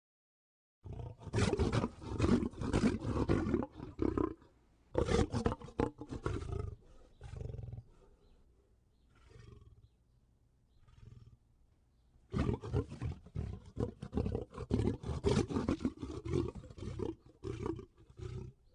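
Lion roaring in repeated bouts. Two loud stretches of roars come in the first half, a few faint short sounds fall in the middle, and a longer loud stretch of roars starts about twelve seconds in.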